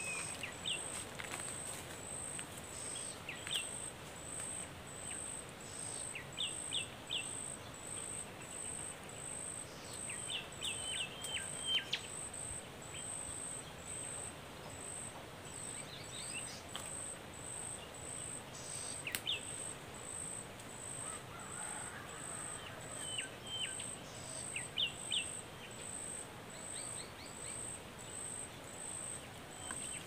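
Small birds giving short high chirps in little clusters every few seconds, over an insect's steady, regular high-pitched pulsing call.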